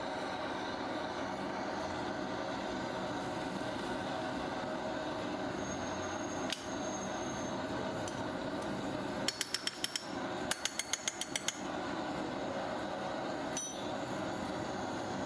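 A steady mechanical drone, with two quick runs of sharp taps a little past the middle, several taps a second, like light hammer blows.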